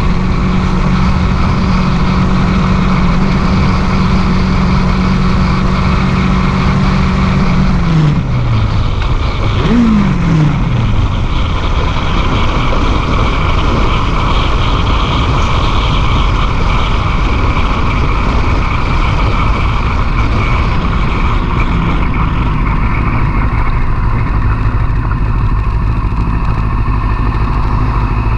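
Sport motorcycle engine running at a steady cruising pitch under heavy wind rush on the microphone. About eight seconds in, the engine pitch falls twice as the revs drop, and it then runs lower under the wind noise.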